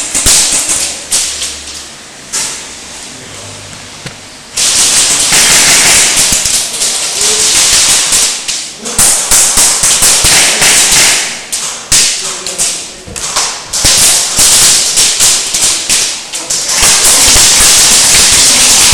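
Airsoft gun firing up close, heard from a camera mounted on the gun: a few scattered clicks, then from about five seconds in long runs of rapid shots with short breaks.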